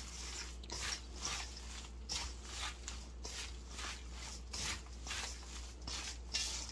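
A gloved hand tossing and mixing sliced chives, carrot, cucumber and onion with red pepper paste seasoning in a stainless steel bowl: a wet rustling stroke about twice a second.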